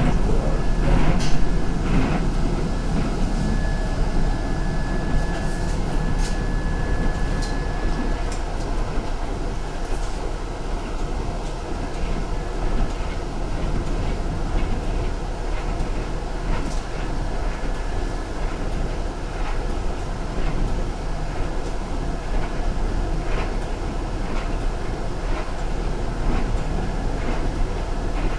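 Ride noise inside a city transit bus on the move: a steady low rumble of engine and road, with light rattles and clicks throughout and a faint thin whine for the first half or so.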